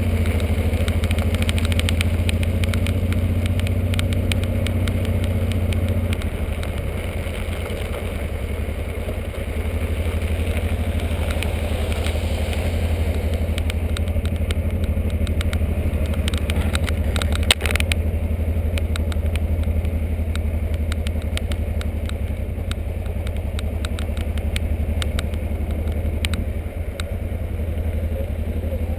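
Motorcycle engine running steadily at low speed, heard from on the bike. The engine note eases about six seconds in and picks up again a few seconds later, with one sharp knock about two-thirds of the way through.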